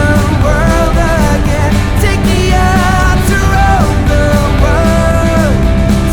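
Rock song playing as background music: a melodic lead line with vibrato over steady bass and drums.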